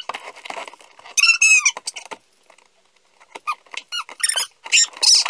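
Packing tape on a cardboard box being cut with a knife and torn off: a squeal about a second in, a short pause, then a run of sharp crackling and squeaking as the tape is pulled.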